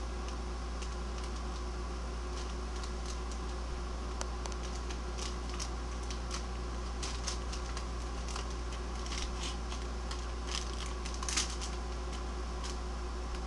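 A Weimaraner puppy chewing and flinging a crinkly bag: scattered crinkling and crackling, sparse at first and busier from about five seconds in, with the loudest crackle about eleven seconds in, over a steady low hum.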